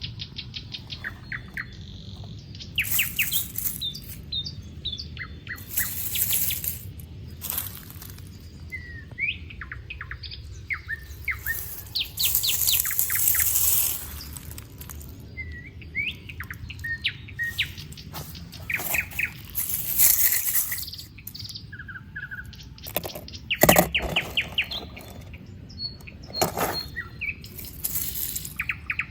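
Birds chirping and calling again and again, with repeated bursts of dry leaves rustling and crunching; the longest rustle comes about halfway through and the loudest a little past two-thirds of the way.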